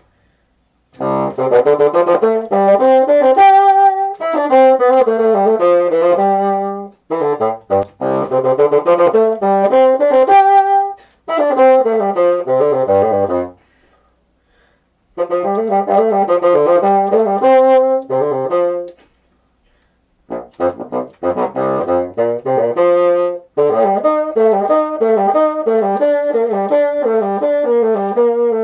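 Solo bassoon playing an unaccompanied melodic passage, starting about a second in, in phrases broken by several short pauses, and reaching down into its low register.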